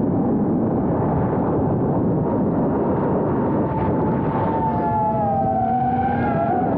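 Small FPV quadcopter's brushless motors and propellers running, heard from the camera mounted on the drone, over a steady rush of air noise. From about two-thirds in, several whining tones slide down and up as the throttle changes.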